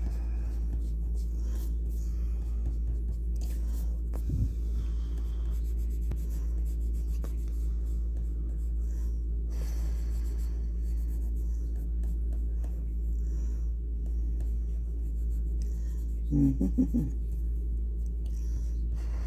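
Graphite pencil shading on drawing paper: many short, irregular scratching strokes over a steady low hum. A brief louder pitched sound comes about three seconds before the end.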